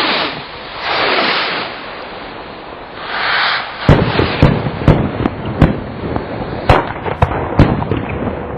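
Fireworks going off: three loud hissing rushes, then from about four seconds in a rapid series of about ten sharp bangs, two or three a second.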